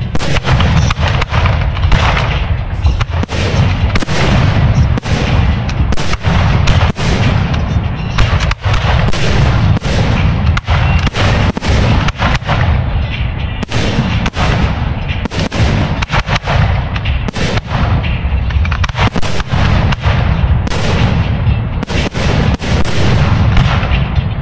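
Fireworks display, aerial shells bursting in rapid, overlapping succession, several bangs a second over a continuous low rumble with no pause.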